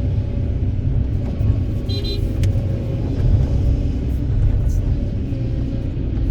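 Heavy diesel engine of an excavator at work, a steady low rumble, with a brief high-pitched squeak and a click about two seconds in.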